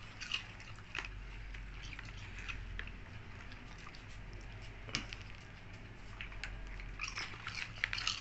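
Dogs chewing popcorn: scattered short, crisp crunches, thickest near the end, over a steady low hum.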